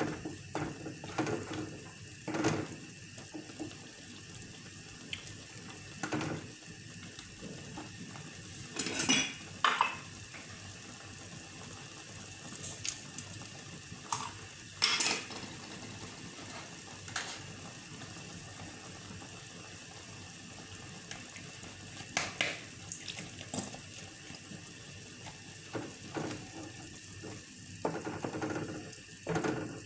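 Kitchen clatter: pots, pans and utensils knocked and set down every few seconds over a faint steady hiss.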